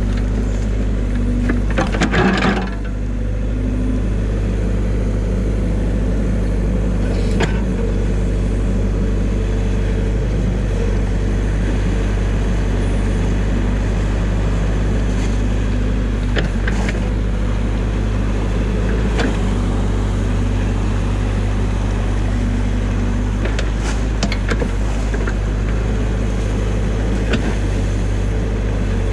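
New Holland mini excavator's diesel engine running steadily under hydraulic load while its bucket digs out a beaver dam of sticks and mud. A loud scraping crunch comes about two seconds in, and a few sharp knocks follow later.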